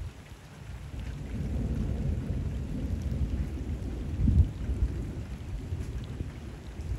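Thunder rolling low and long, building about a second in and peaking in a louder clap about four seconds in, over steady rain falling on canal water.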